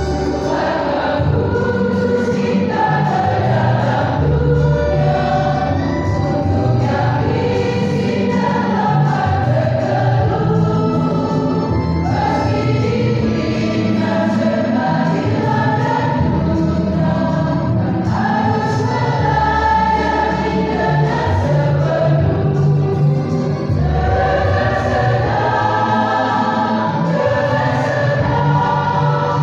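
Church choir singing, many voices together at a loud, steady level.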